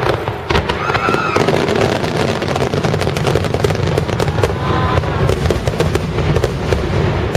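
Dense barrage of aerial firework shells bursting, a continuous run of overlapping bangs and crackles.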